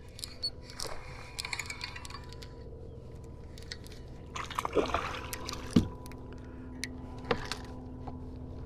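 A hooked bass splashing and thrashing at the water's surface beside a boat, with water sloshing and a few sharp knocks. A steady faint hum runs underneath.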